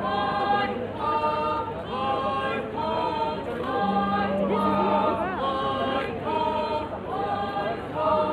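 A group of voices singing a folk chant in short repeated phrases, about one a second.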